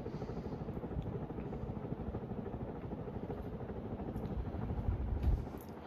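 NuTone Verandah Deluxe 52-inch ceiling fan running steadily on high speed at about 195 RPM: a fluttering whoosh of the blades moving air. On high speed the variable-speed control is bypassed, so there is no controller buzz.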